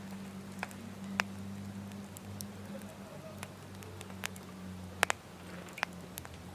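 Wood fire crackling: scattered, irregular sharp pops and snaps, two of the loudest close together about five seconds in, over a steady low hum.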